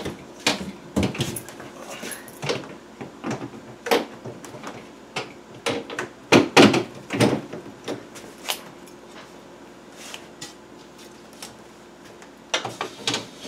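Irregular knocks and clatters of plastic refrigerator parts being handled as the repaired drawer frame is fitted back into the fridge, with the refrigerator door opening. The loudest knocks come about six to seven seconds in.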